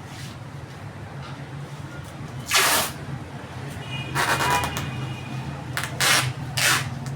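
Packing materials being handled on a shipping carton: four short noisy bursts, the loudest about two and a half seconds in and a longer one near four seconds carrying a thin squeal, over a steady low hum.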